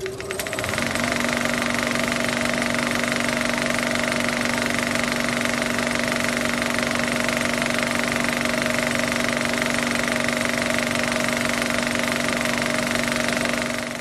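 Film projector running: a steady, rapid mechanical clatter with a whir. It starts with a burst of quick clicks and comes up to speed within the first second.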